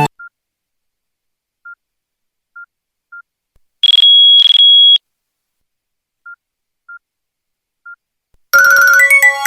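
Nokia N95 ringtone: sparse, soft, identical electronic beeps spaced irregularly, and in the middle one loud, steady, high-pitched tone lasting about a second with a brief break. About a second before the end a melodic ringtone begins.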